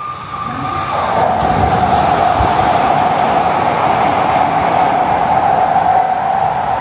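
Tsukuba Express train passing through the station at speed without stopping: a rush of wheel and air noise that swells about a second in and stays loud, with a steady whine running through it.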